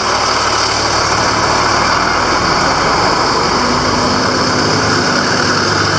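Road traffic: vehicle engines running and idling under a steady hiss, with a low engine hum coming in about halfway through.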